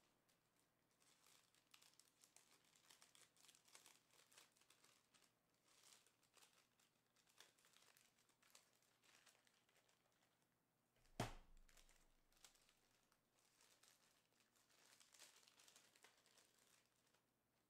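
Near silence with faint, scattered rustling and crinkling, and a single sharp knock a little past the middle.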